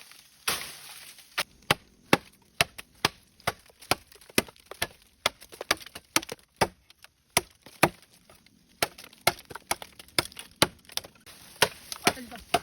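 Bamboo being chopped with a blade: a long run of sharp chopping strikes, about two a second, some harder than others.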